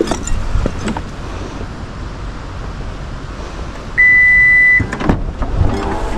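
A steady low rumble, broken about four seconds in by a single loud, high electronic beep lasting nearly a second.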